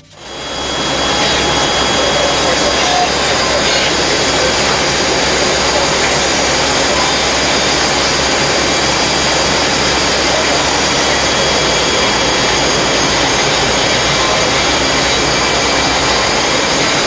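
INDEX CNC turning machine running: a loud, steady machine noise with a few faint steady whining tones. It swells in over the first second.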